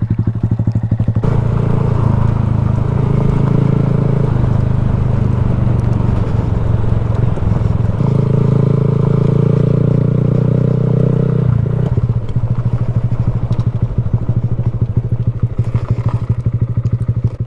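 Honda Grom's small single-cylinder engine, fitted with a budget aftermarket exhaust, puttering at low revs, then pulling away under throttle about a second in with the note rising again midway, before settling back to a slow, even putter as the bike rolls along at low speed.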